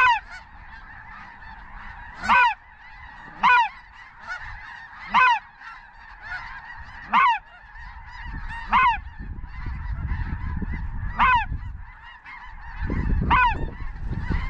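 Geese honking: eight loud single honks a second or two apart over the steady clamour of a large flock. Wind rumbles on the microphone in gusts through the second half.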